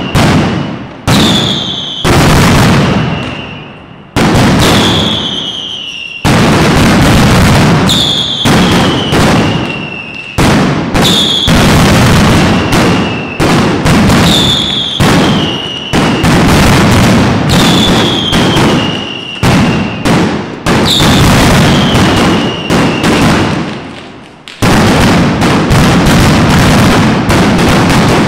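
Mascletà: a dense, unbroken barrage of ground-level firecrackers banging one on top of another, with a high falling whistle that comes back about every two seconds. About 24 seconds in it eases for a moment, then comes back even denser and louder.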